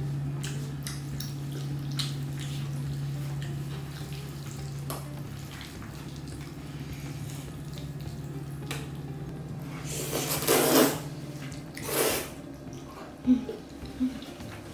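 Close-up eating sounds from a bowl of jjajangmyeon: soft clicks of chopsticks, then two loud noodle slurps in quick succession in the second half, followed by two sharp clicks of chopsticks against the dish. A steady low hum sits under the first half.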